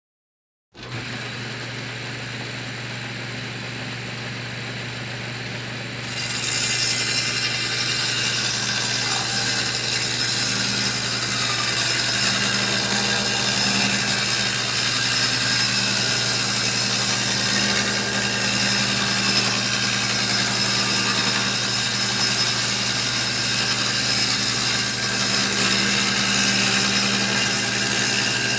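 Electric saw starting up and running steadily with a low hum, then about six seconds in getting much louder and harsher as it cuts, and carrying on cutting.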